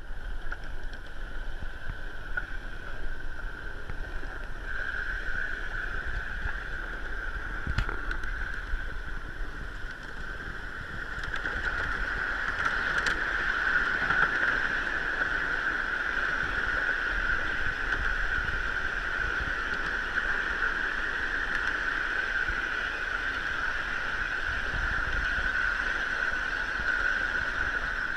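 Ride-on miniature railroad train rolling along its track, a steady running noise with a high whine throughout that grows louder about eleven seconds in. A single sharp click comes near eight seconds.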